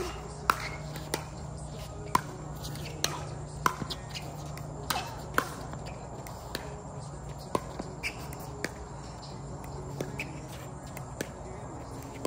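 Pickleball rally: paddles striking the hard plastic ball in sharp, hollow pocks, about one every half second to second, with the loudest hits in the first half.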